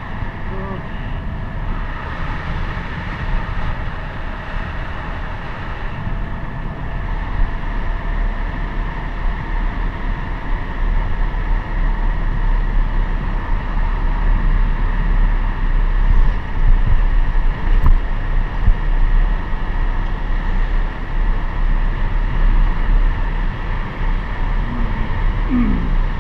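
Motorcycle engine running steadily while riding, with wind buffeting the microphone; it gets louder about a quarter of the way through as the ride picks up.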